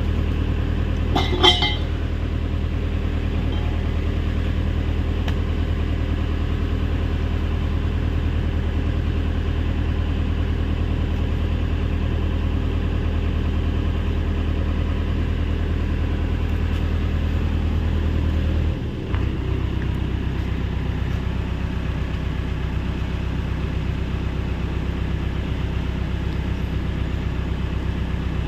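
Hyundai 85A excavator's diesel engine running steadily, then dropping to a lower speed about nineteen seconds in. A brief high-pitched ring sounds once, about a second and a half in.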